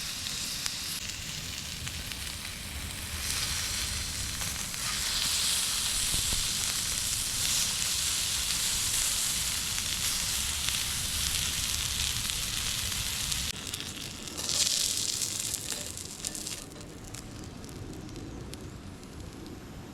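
Lamb sizzling over a wood campfire, a steady hiss that swells a little past halfway and dies down over the last few seconds.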